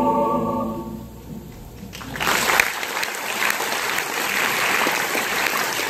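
A choir's final held chord fading out over the first second, then audience applause breaking out about two seconds in and carrying on steadily.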